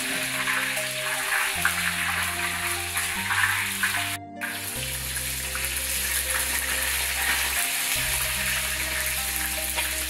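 Small crucian carp deep-frying in hot oil in a large wok, a dense steady crackling sizzle, with background music underneath. The sound breaks off briefly about four seconds in.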